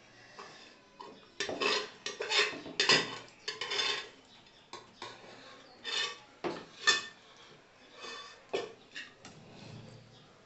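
A metal spoon and fingers scraping and clinking on steel plates as rice and chicken are mixed and scooped up, in irregular short bursts.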